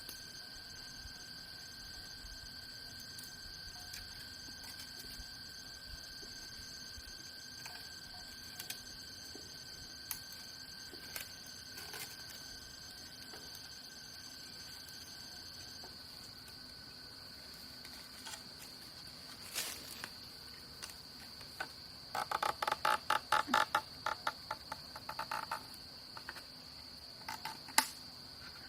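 Steady drone of insects, crickets or cicadas, holding several high, even tones, with scattered sharp clicks and knocks. About 22 seconds in, a rapid series of pitched, pulsing calls runs for about four seconds.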